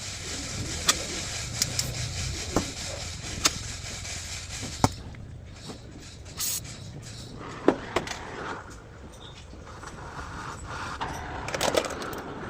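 Irregular sharp knocks and clicks, about seven of them spread over the first eight seconds, over a steady background hiss.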